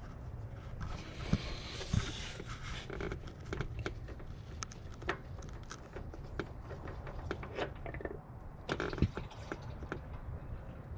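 Scattered clicks, knocks and scrapes of a hand working down through the engine bay of a Ford 5.0L Coyote V8 to reach the oil filter from above, with a stretch of rustling about a second in.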